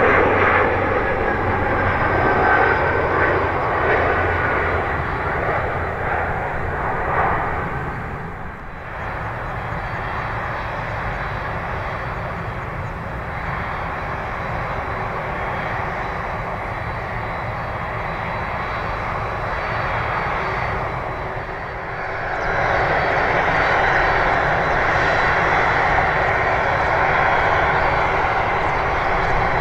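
Jet airliner engine noise from a Boeing 767-300ER's GE CF6-80C2 turbofans, a steady loud roar that drops out briefly about eight seconds in and grows louder about twenty-two seconds in.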